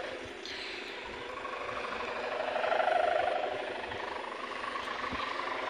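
Kite hummer (sendaren) droning from a kite aloft: a steady warbling hum that swells about three seconds in and then fades.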